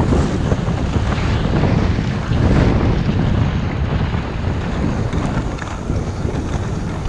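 Wind buffeting the microphone: a loud, unbroken rushing rumble that swells a little around the middle.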